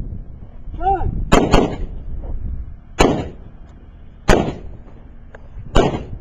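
Rifle shots: a quick pair about a second and a half in, then three single shots spaced roughly a second and a half apart, each with a short echo.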